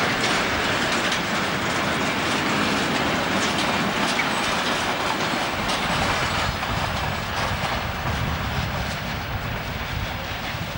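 Goods wagons of a freight train rolling past, their wheels clacking over the rail joints; the sound eases off over the last few seconds as the end of the train moves away.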